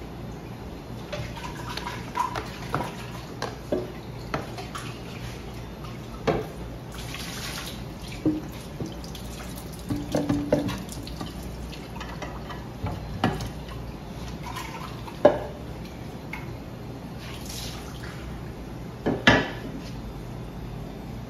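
Water filter parts being handled and rinsed at a washbasin: scattered knocks and clicks of the parts against each other and the basin, with two short splashes of running water; the loudest knocks come near the end.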